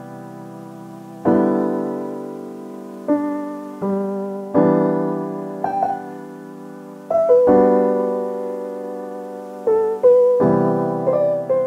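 Background music played on piano: slow chords struck every second or two, each ringing out and fading, with a few higher single melody notes in the second half.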